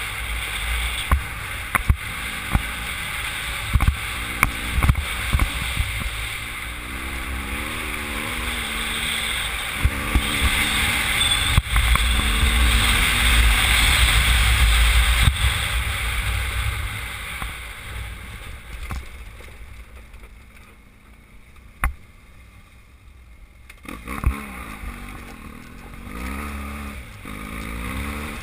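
Motorcycle riding over a rough gravel track: engine note rising and falling, wind buffeting the microphone, and frequent sharp knocks from the bike on the stony surface. The sound drops noticeably about two-thirds of the way through, then picks up again.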